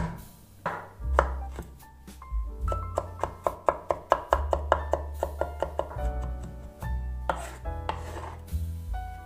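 Kitchen knife chopping garlic cloves on a wooden cutting board: a few separate chops, then a fast even run of about four to five chops a second in the middle, then slower chops again near the end, over soft piano music.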